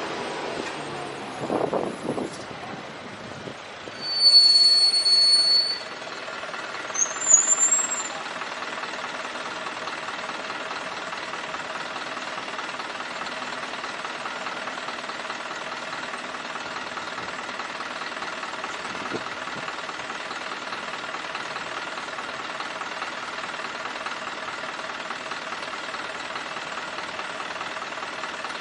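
A high brake squeal lasting about two seconds, then a short rising squeak. After that, a vehicle engine idles steadily for the rest of the time, amid traffic noise.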